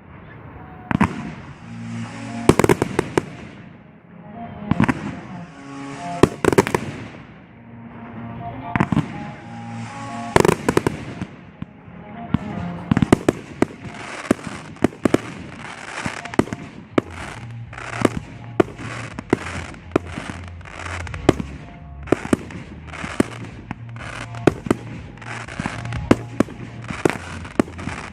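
Firework aerial shells bursting in a series of sharp bangs, a few seconds apart at first and then a dense rapid run from about halfway through, with music playing underneath.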